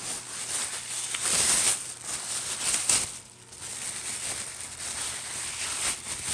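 Plastic grocery bags crinkling and rustling as they are handled and pulled away from the packed chert, louder in two spells about one and a half and three seconds in.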